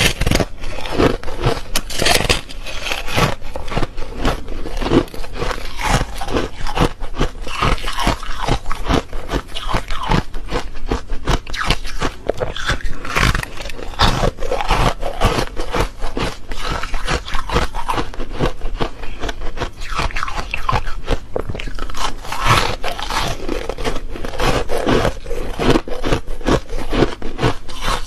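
Close-miked biting and chewing of refrozen foam ice: a continuous run of sharp, crackly crunches as chunks are bitten off the frozen block and chewed.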